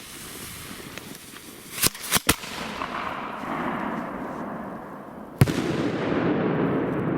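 A 3-inch (75 mm) salute firework shell going off with a single loud bang about five seconds in, followed by a long, loud low rumble. Three sharp cracks come about two seconds in, and a rushing noise builds before the bang.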